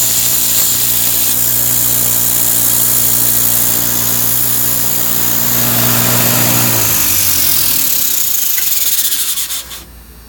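Homemade 2x72 belt grinder running: a steady motor hum under a loud belt hiss. About seven seconds in the hum falls in pitch and fades as the machine winds down, and the hiss stops suddenly near the end.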